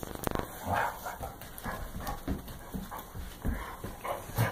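Two large dogs play-wrestling: short grunts and growls with huffing breaths, coming every half second or so, mixed with scuffling on the rug.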